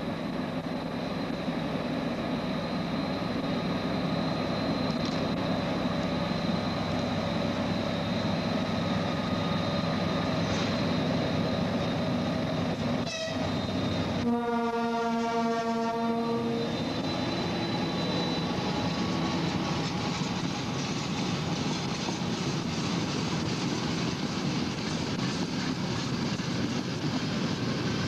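Pair of ST44 (M62) diesel locomotives, with two-stroke V12 14D40 engines, working a heavy freight train: a steady engine drone with wheel noise. About halfway through, the locomotive horn sounds one steady blast of about two and a half seconds.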